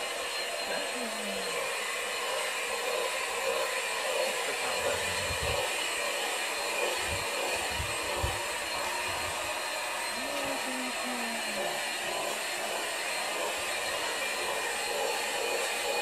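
Vacuum cleaner running steadily with an even rushing whir, a few low thuds sounding in the middle.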